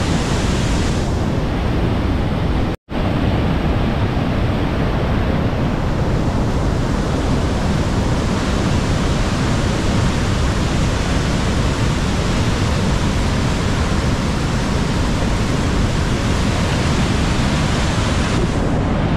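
Steady, loud rush of Niagara Falls' falling water, mixed with wind on the microphone. The sound cuts out for an instant about three seconds in.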